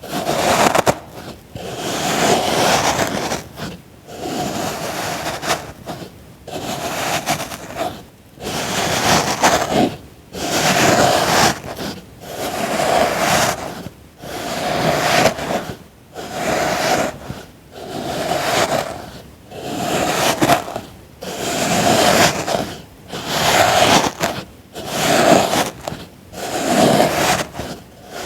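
Repeated crunchy scraping strokes of a tool cutting through packed sand, about one every one and a half seconds.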